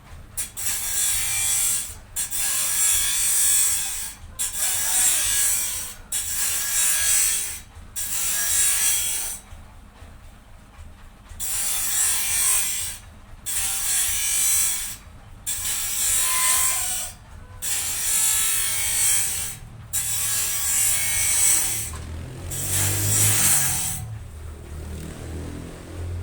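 Wood being worked in a steady run of rasping strokes, about a dozen, each a little over a second long with short pauses between them, over a low steady hum.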